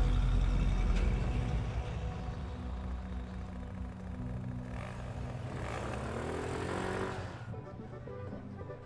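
A small motor scooter riding up and past, its engine note rising about five and a half seconds in, over background music. Near the end the engine gives way to music alone.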